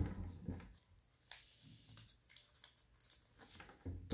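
A small sheet of origami paper being pressed and creased against a tabletop by hand: a few short, faint paper rustles and crinkles, with dull handling bumps at the start and near the end.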